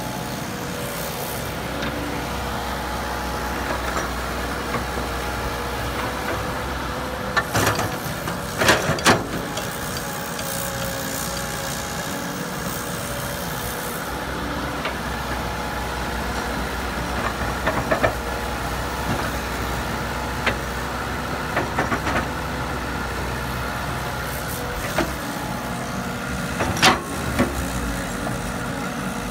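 Caterpillar tracked hydraulic excavator's diesel engine running steadily with a constant humming tone as it digs and loads soil. Sharp clanks from the working excavator come several times, loudest about 9 seconds in and again near the end.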